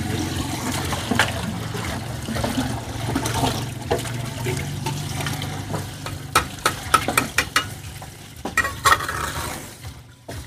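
Water being stirred and sloshed, over a steady low hum, then a run of sharp knocks and taps in the second half.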